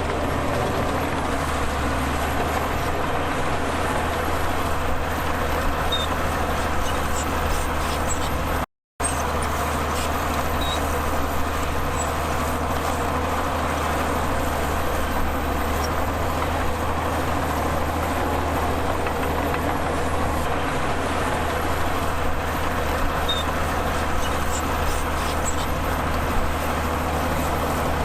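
Heavy diesel earthmoving machinery running steadily with a deep, even drone. The sound cuts out for a moment about nine seconds in.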